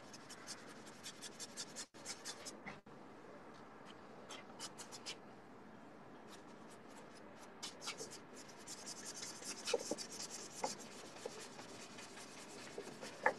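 Paintbrush dragged over stretched canvas in a run of short, scratchy strokes, faint, thickest a little past halfway.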